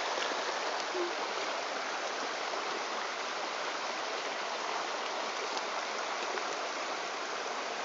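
Stream water running, a steady, even rush.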